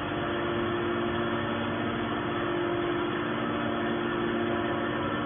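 Horizontal hydraulic scrap-metal baler running with a steady, even hum, with no crushing impacts.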